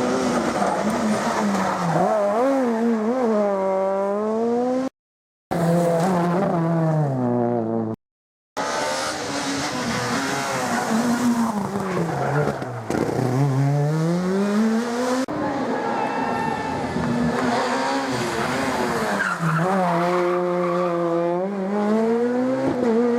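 Rally car engines at full racing load, the pitch climbing and dropping again and again through hard acceleration, gear changes and braking, with tyre noise on the stage. The sound cuts out to silence twice for about half a second, around five and eight seconds in.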